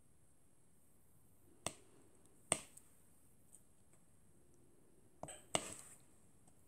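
Sharp plastic clicks and taps of diamond-painting work: resin drills being picked up and pressed onto the canvas with a drill pen. There are two single clicks, then a quick cluster of several near the end.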